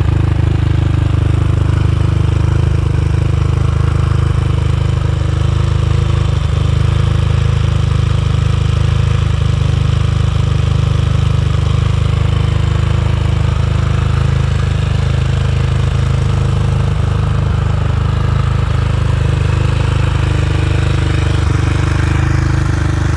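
KTM 500 EXC-F single-cylinder four-stroke dirt bike engine idling steadily through an FMF 4.1 exhaust, with no revving.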